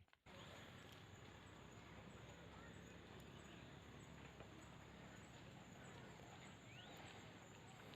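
Faint, steady rush of flowing river water, with one short rising bird chirp about seven seconds in.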